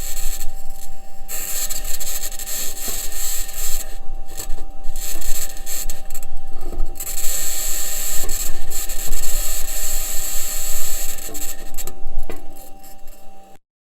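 NASA Perseverance rover's wheels clanking and grating over Martian ground as it drives, an uneven, noisy rasp with a steady thin tone running through it. It cuts out briefly near the end.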